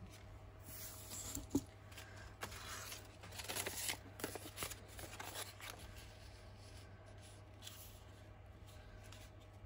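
Brown kraft paper rustling faintly as a strip and a folded sheet are handled, unfolded and pressed flat by hand, with a single light tick about a second and a half in; the rustling dies down after about six seconds.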